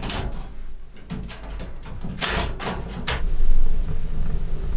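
Metal door and latch of a small stainless-steel REMTA wood stove clicking and clanking as it is worked, with several sharp knocks in the first three seconds. A steady low rumble takes over near the end.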